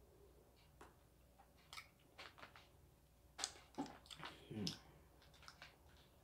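Faint mouth clicks while a candy straw is chewed and sucked. From about three and a half seconds in comes a burst of sharper crackles and clicks as a large sheet of dried squid is handled on its plastic wrapping.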